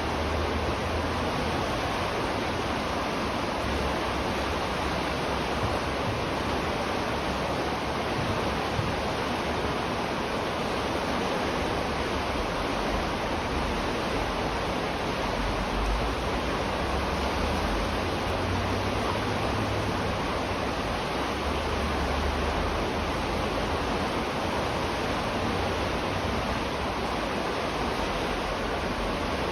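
River water flowing, a steady even rushing, with a low rumble underneath that swells and fades.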